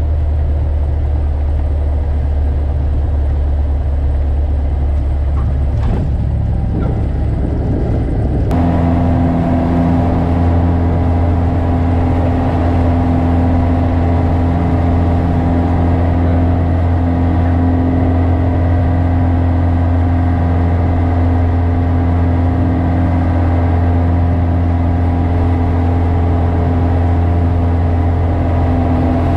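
Single-engine light aircraft's piston engine and propeller running at high power through the takeoff roll and liftoff, heard from inside the cockpit as a steady drone. About eight seconds in, the tone changes abruptly to a stronger, fuller drone that holds steady.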